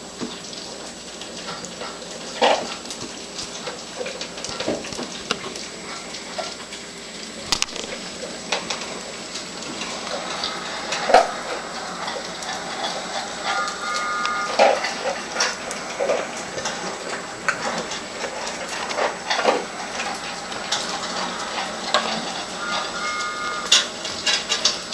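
Puppies playing: scattered short yips and whimpers among many small knocks and rustles, busier in the second half.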